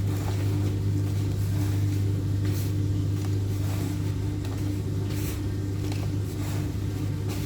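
A steady low electrical-sounding hum, with a few soft brief squishing sounds of hands kneading dough by hand.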